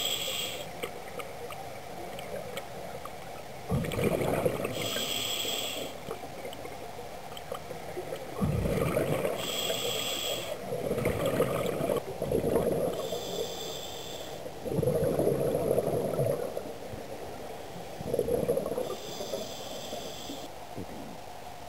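Scuba diver breathing through a demand regulator: slow breaths every four to five seconds, each inhalation a hiss with a whistling tone and each exhalation a burst of bubbling rumble.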